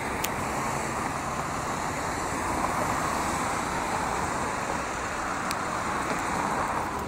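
Steady road traffic noise from cars passing on a busy multi-lane city street.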